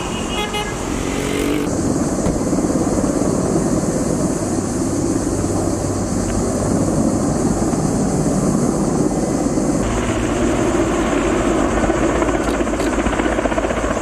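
Firefighting helicopter flying with a water bucket slung beneath it: steady engine and rotor noise with a rapid flutter. A brief tooting tone sounds in the first second or so.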